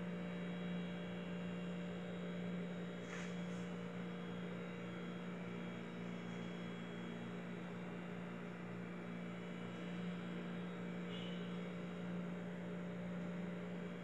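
A steady, low electrical hum, like a running kitchen appliance or mains buzz, holding one pitch throughout, with a faint brief higher sound about three seconds in.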